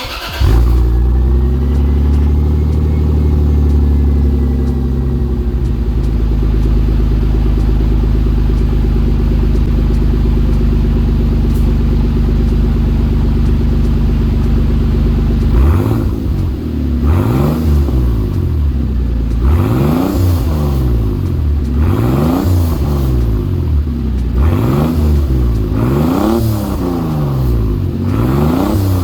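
Lexus GS300's 2JZ-GTE turbocharged straight-six cold-started on fresh spark plugs, catching at once and settling into a steady fast idle. From about halfway it is revved in repeated throttle blips about every two seconds, each rising and falling. This is a check for the misfire and rough idle.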